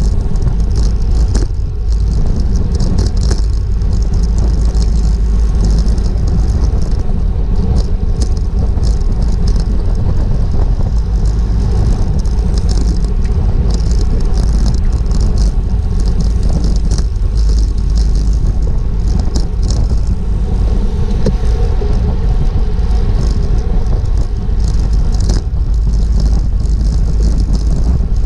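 Wind rumbling on a GoPro's microphone while a racing bicycle is ridden at speed, with irregular light clicks and rattles from the bike over the top.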